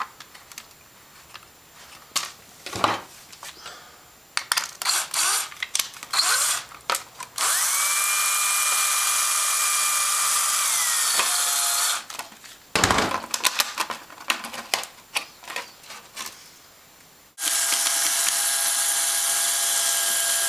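Power drill driving a screw through sheets of plastic beehive foundation: handling clicks and knocks, then a steady run of about four seconds that winds up at the start and winds down at the end, and near the end a second run.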